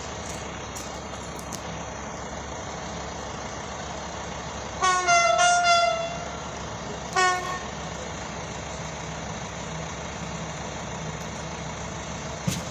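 Train horn sounding about five seconds in: a run of close blasts lasting about a second, then one short blast a second later, over steady outdoor background noise.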